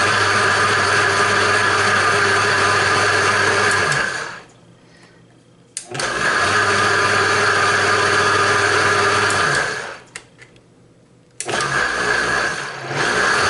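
Vitamix 750 Professional Series blender motor running with water churning in the jar. It runs for about four seconds and stops, starts again for another four seconds or so and stops, then starts a third time near the end.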